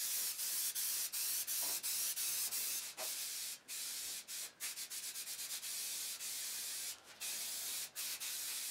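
Aerosol spray-paint can hissing in long passes, broken by a few short pauses between sprays.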